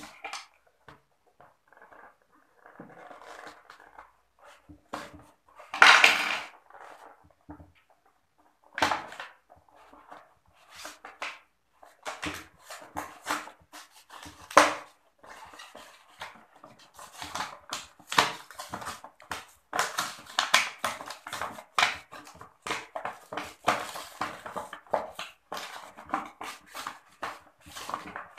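Stiff plastic blister packaging crinkling and crackling as it is pried open and its card insert is pulled off the tray. Scattered small clicks at first, a louder crinkle about six seconds in, then a dense run of crackles through the second half.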